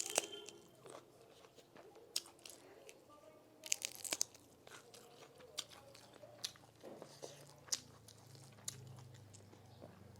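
A person eating close to the microphone: chewing with scattered crunchy bites and small wet mouth clicks, with a cluster of louder crunches about four seconds in.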